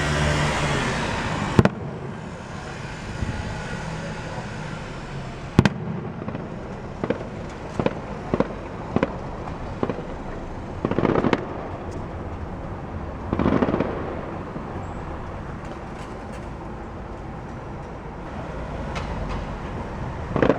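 Fireworks going off: two sharp bangs a few seconds apart, then a string of smaller pops and two spells of crackling, over a steady background rumble.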